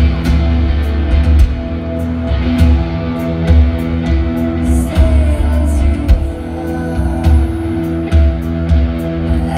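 Live rock band playing loud amplified music: electric guitars and bass guitar over a steady drum beat.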